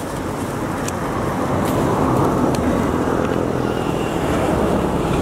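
Road traffic: a passing motor vehicle's engine and tyre noise swells over the first two seconds and then holds steady and loud.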